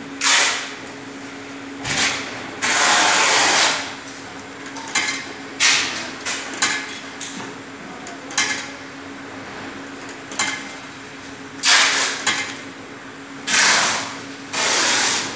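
Cloth bag vending machine being operated: a series of knocks, clatters and noisy rustling bursts, several lasting about a second, over a steady low hum.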